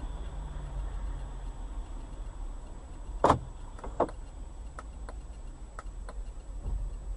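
Car interior as picked up by a dash cam: a steady low rumble of the moving vehicle, a sharp knock about three seconds in, a second knock a moment later, then a few light ticks.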